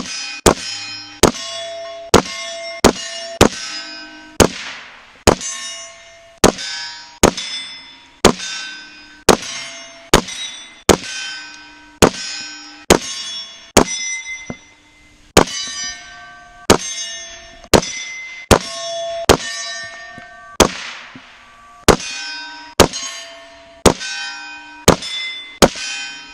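A 300 Blackout AR pistol firing a long string of about thirty single shots, roughly one a second, at steel targets. Each crack is followed by a short metallic ring whose pitch changes from hit to hit as different plates are struck.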